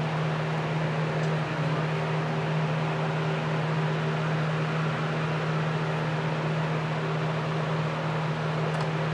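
A steady mechanical hum, like a small electric motor or fan running, with a constant low drone that does not change. A couple of faint light clicks come near the end.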